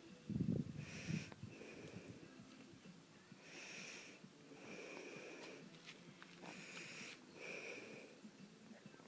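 Faint, wheezy breathing or sniffing close to the microphone, coming in short puffs about every second or so. A brief low bump about half a second in is the loudest sound.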